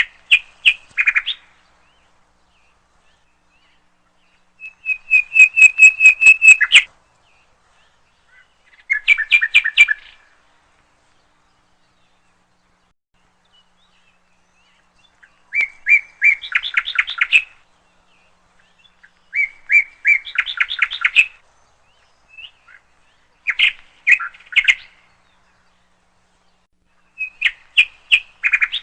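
A small bird singing in short bursts of rapid, repeated chirps, about seven phrases with pauses of a few seconds between them.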